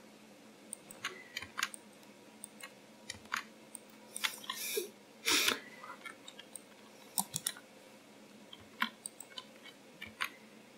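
Computer keyboard keys and mouse buttons clicking at irregular intervals as a 3D model is edited, with two brief louder noises about four and five seconds in.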